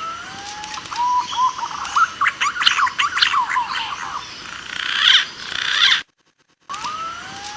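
Recorded lure call of green pigeons (punai): a run of whistled, warbling notes gliding up and down. It is played as a loop, cutting off about six seconds in and starting the same phrase again after a short gap.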